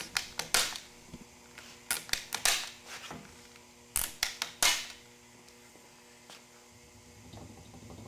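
Handheld cable-tie tensioning and cutting tool clicking and snapping as it cinches and trims nylon cable ties, in three bursts of sharp clicks about two seconds apart.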